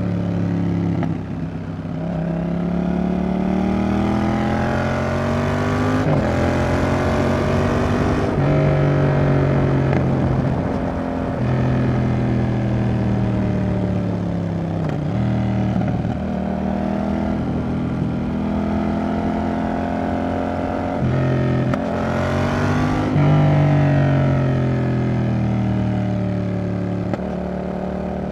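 Yamaha XSR700's CP2 parallel-twin engine running through an aftermarket Roadsitalia exhaust while riding. The engine note rises under acceleration and falls off again several times, with sudden drops in pitch about 6, 11, 15 and 21 seconds in.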